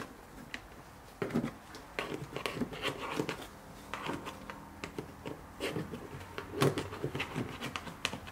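A plastic trim tool and fingers pushing a dash cam power wire in behind a car's rubber door weather seal and plastic trim: irregular clicks, taps and rubbing, starting a little over a second in, with the loudest knock about six and a half seconds in.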